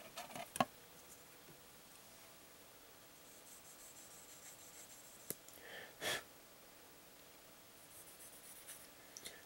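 Small plastic model-kit parts being handled and fitted: a few light clicks near the start, a sharp click a little past five seconds in, and faint scratchy rubbing. A short breath sounds about six seconds in.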